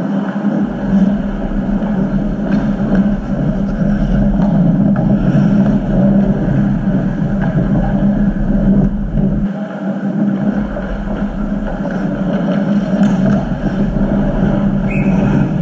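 Ice hockey rink during play: a steady loud hum and rumble, with a few sharp clacks from sticks and puck on the ice.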